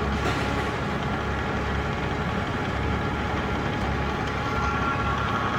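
Power feed motor of a vertical milling machine driving the table, running steadily with a low hum and a high, even whine.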